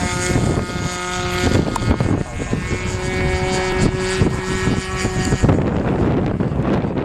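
Radio-controlled model airplane's motor and propeller running at a steady pitch, over rough noisy rumble, the sound turning duller about five and a half seconds in.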